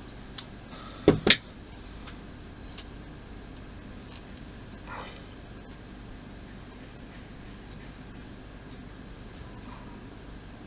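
Two sharp knocks in quick succession about a second in, as a model part is handled on the bench, then a small bird giving short high chirps about once a second.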